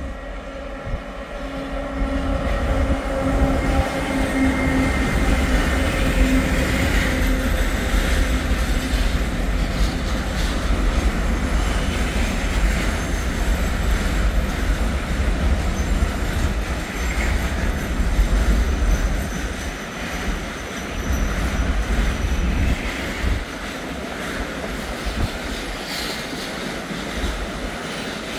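Train running past on the rails: the sound swells over the first couple of seconds into a loud, steady rumble of wheels on track, with steady whining tones over the first several seconds that fade away.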